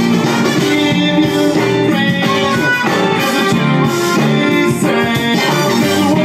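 Background music with plucked strings and instruments playing steadily.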